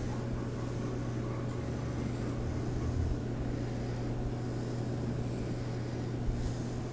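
A steady low hum with a hiss over it and no distinct event.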